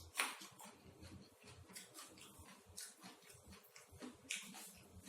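A person chewing food close to the microphone: faint, irregular soft clicks and wet smacks of eating.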